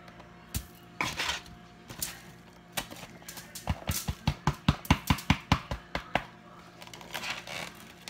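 Kitchen counter handling as raw hamburger meat is worked on: a few scattered knocks and clatters, then a quick run of about a dozen short thumps, around five a second, starting a few seconds in.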